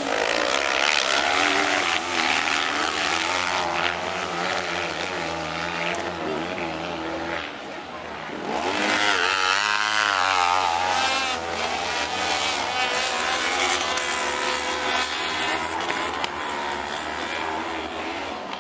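500 cc kart cross buggies racing, several engines revving at high pitch and changing note as they accelerate and shift. One passes close about nine seconds in, its engine note sweeping up and then down.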